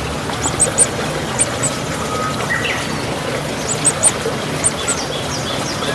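Outdoor farm ambience: small birds chirping in short, high-pitched clusters of two or three notes over a steady background hiss.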